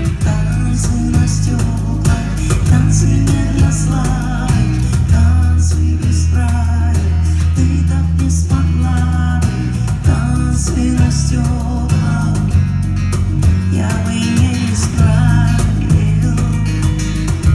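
Live band playing a pop-rock song: guitar over heavy bass and drums, with a lead melody line that wavers and bends in pitch.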